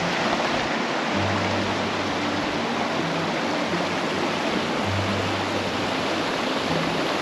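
Mountain creek flowing, a steady rush of water. Soft background music plays underneath.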